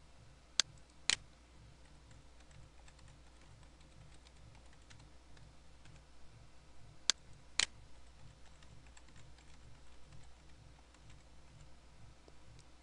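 A computer mouse and keyboard as a password is entered: two sharp mouse clicks about half a second apart just after the start, and two more about seven seconds in, with faint light keystrokes in between.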